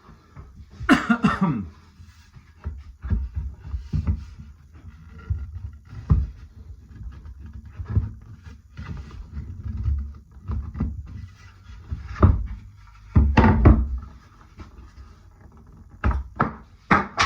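Wooden table parts with loose tenons being pushed and knocked together for a dry fit: irregular thuds and knocks, louder around a second in, after about thirteen seconds and near the end. About a second in there is a short whine that falls in pitch.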